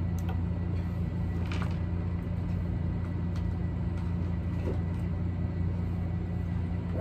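Steady low hum of background noise, even throughout, with a few faint clicks.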